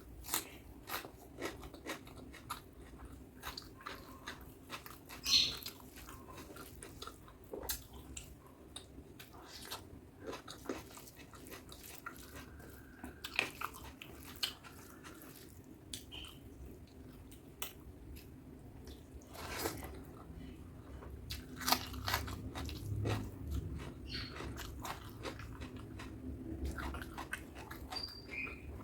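Close-miked chewing of butter chicken and rice: irregular wet mouth clicks and smacks while eating.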